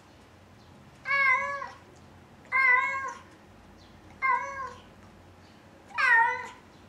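Cat meowing four times at roughly one-and-a-half-second intervals, each meow about half a second long and arching up then down in pitch.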